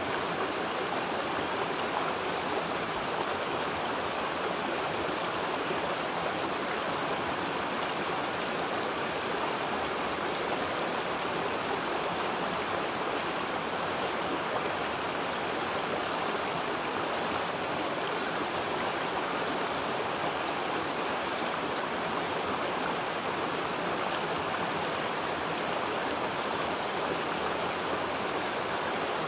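Running water, a steady even rush that does not change.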